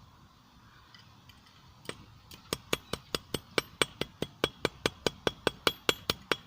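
Hammer blows on a small anvil, hand-forging a hot steel screw blade to correct its shape: starting about two seconds in, a fast, even run of strikes, about five a second, each with a short, bright metallic ring.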